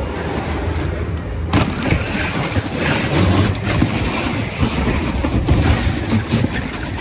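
Sled running down a slide track with a ridged, matted surface: a continuous rumble and rush that gets suddenly louder about a second and a half in as the sled drops and picks up speed.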